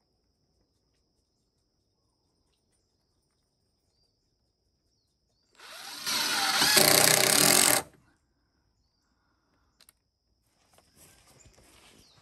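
A power tool runs for about two seconds, starting about five and a half seconds in: a short build-up, then full-speed running that cuts off abruptly. Otherwise near silence with a faint steady high tone.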